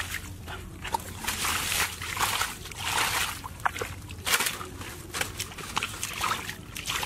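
Bare feet sloshing and squelching through shallow muddy water, a string of irregular wet steps about once a second.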